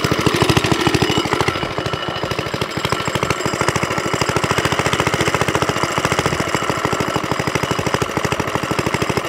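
Suffolk Corporation Mk2 vintage cylinder lawnmower's small petrol engine running steadily just after being pull-started, with an even, rapid firing beat.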